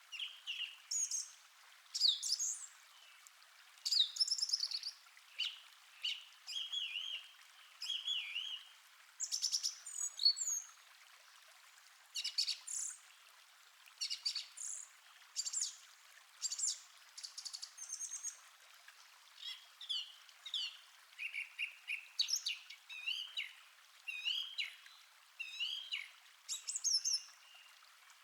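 Several birds chirping and singing in quick, overlapping phrases of short high notes and trills, over a faint steady hiss of a flowing stream.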